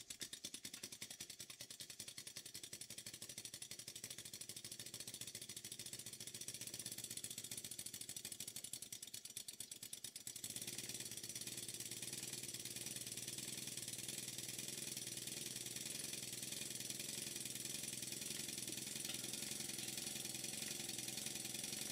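Reeves Warrior-type model steam engine running on compressed air, its exhaust beating at a fast, even rhythm. The beat grows louder and steadier about ten seconds in. It is running smoothly on its first run after long disuse, on thin machine oil.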